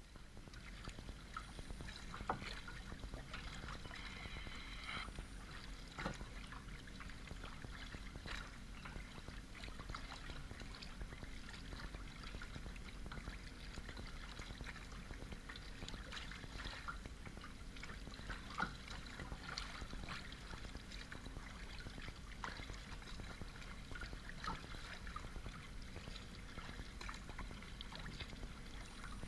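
Water lapping and splashing against a sea kayak's bow as it moves through choppy water, in many irregular small splashes over a steady low rumble.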